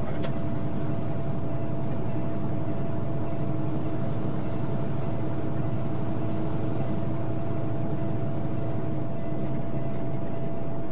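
Steady vehicle noise heard from inside a truck's cab: an even engine and road hum with a faint steady whine, holding one level throughout.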